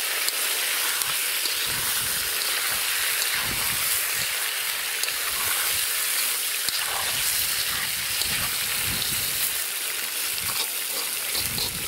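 Chunks of lamb and pork frying in rendered fat in a kazan, a steady sizzling hiss, stirred with a spoon with scattered soft low knocks. This is the first stage of plov, browning the meat.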